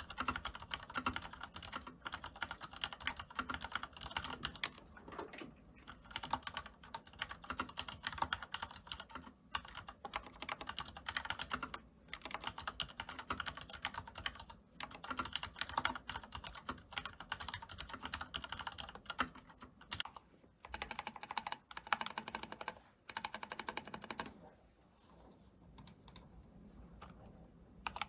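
Steady typing on mechanical keyboards with lubricated red linear switches: first a Leopold FC900R (Cherry MX Red, PBT keycaps), then, after a brief pause about two-thirds of the way through, an Arcon FX1 with Krytox-lubed Cherry Reds. The typing is softer near the end.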